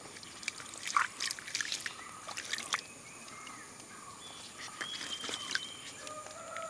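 Shallow running stream water splashing and trickling as colocasia (taro) leaves are handled and rinsed in it by hand, with a flurry of small splashes in the first few seconds. A few short bird calls sound in the background.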